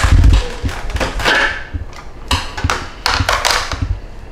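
Knocks and clicks of a plastic blender jar and its lid being handled on a kitchen counter: a heavy thump at the start, then several sharper knocks over the next few seconds. The blender motor is not running.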